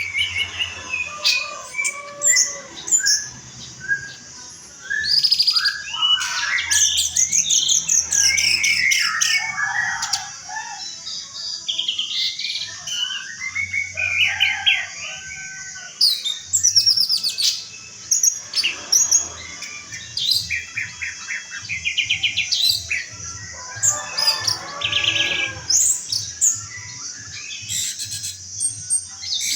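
Orange-headed thrush (anis merah) singing a long, varied song of rapid whistled phrases, trills and chirps, with short pauses between phrases. A faint low hum runs underneath.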